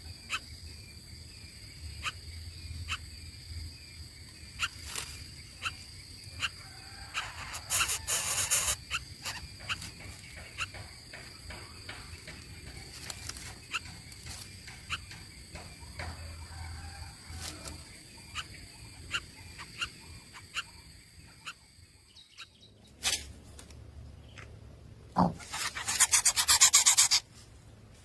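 Nestlings in a nest, with scattered small clicks and scratches and two bursts of rapid, rasping begging calls. The second burst, near the end, is the louder.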